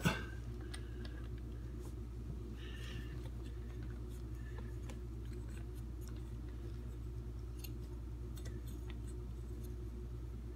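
Faint scattered clicks and a brief rustle of hands fitting a water hose onto a dishwasher's water inlet valve, over a steady low hum.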